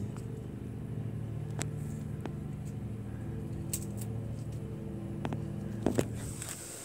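A steady low hum with several faint clicks and taps, two louder ones close together about six seconds in.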